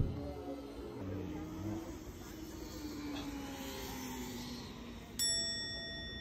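A single bright chime sound effect about five seconds in, starting suddenly and ringing on, marking the reveal of a random coaster that turns out to be a duplicate. Before it there is only a faint low background.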